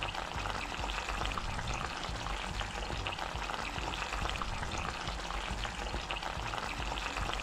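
Curry goat simmering in a frying pan over a gas burner: the thick sauce bubbles and sizzles with a steady crackle of small pops, which stops abruptly at the end.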